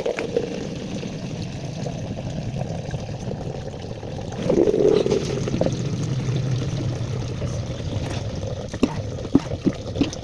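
Water running steadily from a newly replaced faucet as it is turned on to test it, briefly louder about four and a half seconds in, with a few light clicks near the end.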